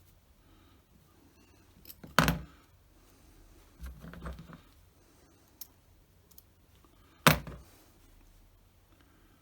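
Handling noises on a workbench while a model aircraft kit is assembled: two sharp clicks or knocks, about two seconds in and again about five seconds later, with a brief patch of rustling and handling between them.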